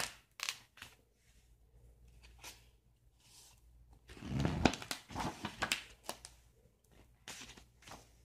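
Irregular rustling, crinkling and light knocking handling noises, with a louder cluster about four to five seconds in.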